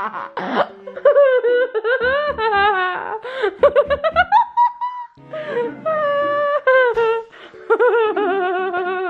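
Hard, high-pitched laughter in long wavering peals that break off briefly twice.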